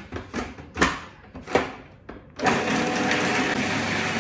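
Magimix food processor: a few sharp plastic knocks and clicks as the lid is fitted and locked on. A little over halfway through the motor starts and runs steadily, chopping shallots and fresh herbs.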